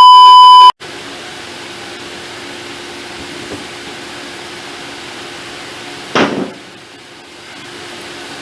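A loud, steady electronic beep tone lasting about a second, then a steady background hum and hiss, with a short whoosh about six seconds in.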